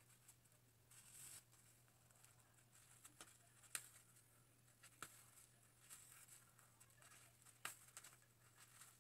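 Near silence, with faint rustles and a few sharp light clicks from a plastic highlighting cap as strands of hair are hooked and pulled through its holes; the sharpest click comes a little before four seconds in.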